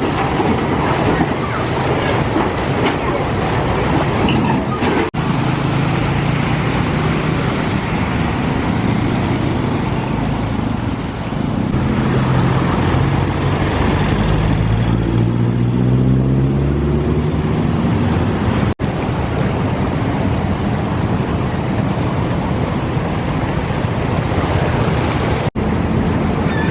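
Traffic moving along a flooded road: a steady noisy rush of engines and water. From about twelve to sixteen seconds in, one vehicle's engine rises in pitch as it speeds up. The sound jumps abruptly at a few edits.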